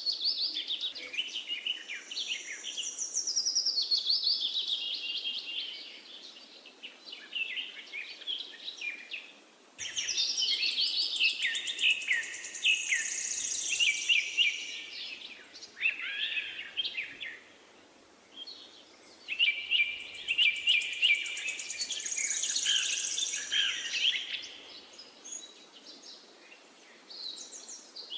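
A finch singing: long, fast, warbling phrases of several seconds each, separated by pauses of a few seconds.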